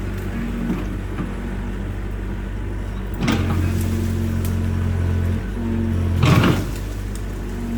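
Excavator's diesel engine running steadily, working harder for a couple of seconds partway through, with two short scraping bursts about three seconds apart.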